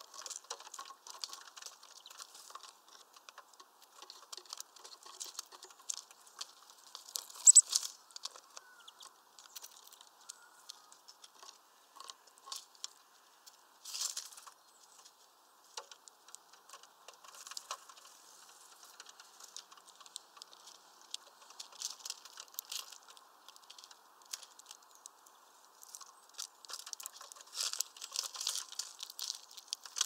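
A small songbird bathing in a shallow plastic water dish, flicking and splashing water in irregular pattering spatters. The loudest splash comes about seven and a half seconds in, with more flurries around the middle and near the end.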